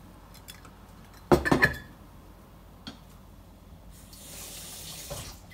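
Salted water boiling in a stainless steel pan with penne just added, bubbling quietly and swelling to a louder hiss about four seconds in. About a second and a half in there is a sharp clatter of knocks with a brief ring, the loudest sound.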